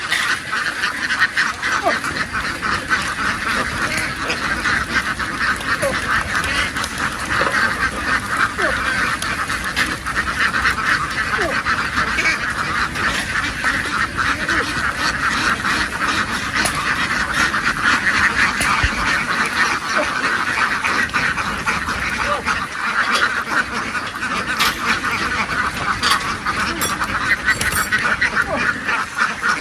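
A large flock of domestic ducks quacking without a break, many birds calling over one another in a dense, steady chatter.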